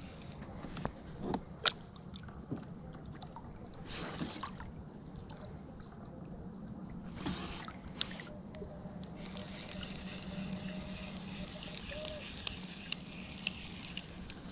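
Quiet sounds of fishing from a kayak: water lapping and sloshing at the hull, with scattered small clicks and knocks. Two short rushing splashes come about three seconds apart, and a faint hiss runs through the later part.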